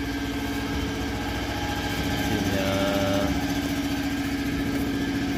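Paper-making machine in a paper mill running with a steady mechanical drone and hum. A short higher tone joins it about two and a half seconds in.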